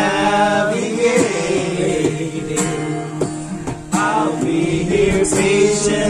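Acoustic guitar strummed while men sing a song together.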